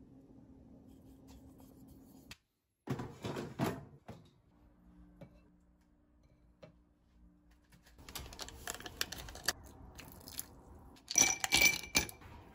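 Ice cubes knocking and clinking against a glass as a wooden stick stirs them, the loudest clinks ringing about eleven to twelve seconds in. Earlier, about three seconds in, a short crunching rustle.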